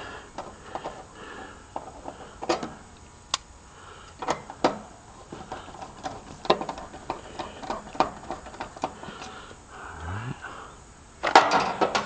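Scattered clicks and light metal taps as perforated metal plumbing strap is bent and handled around an air conditioner's run capacitor, with a louder stretch of handling clatter near the end.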